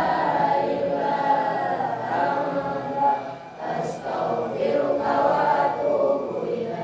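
A class of schoolchildren reciting a prayer together in unison, a chant-like group recitation with a brief pause between phrases about three and a half seconds in.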